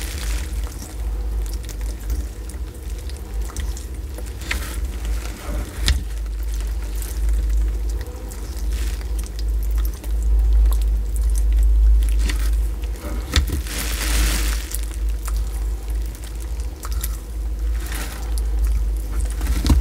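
Sulcata tortoise biting and chewing soft papaya: irregular clicks of its beak and soft tearing and mashing of the fruit, over a low steady rumble.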